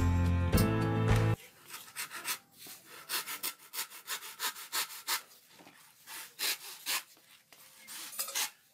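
Music for the first second or so, then a long-handled blade cutting into a dry coconut husk held on a stone block. The cutting comes as short, irregular strokes, two or three a second.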